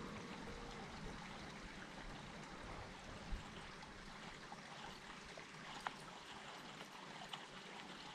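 Faint, steady rushing of water, with a few sharp light clicks scattered through it.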